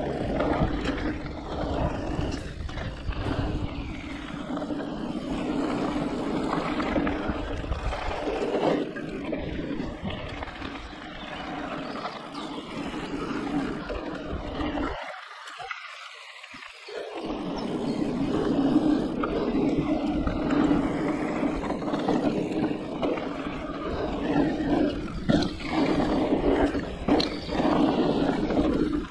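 Riding noise of a Giant Reign E+ e-mountain bike on a dirt trail: tyres rolling over packed dirt, with bumps and rattles from the bike and a steady rumble of wind on the microphone. The rumble briefly drops out about halfway through.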